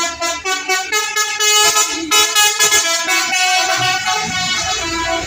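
A bus's Basuri musical 'telolet' air horn playing a quick tune, loud held notes stepping from one pitch to the next every fraction of a second.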